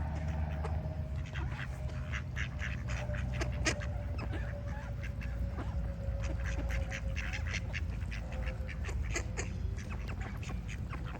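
Ducks quacking repeatedly in a run of short calls, with other birds calling, over a steady low rumble.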